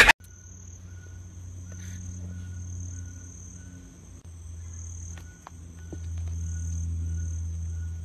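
Insects singing: a steady high-pitched trill, with a second, lower insect call that comes and goes in short spells. A low steady hum runs beneath and grows louder about six seconds in.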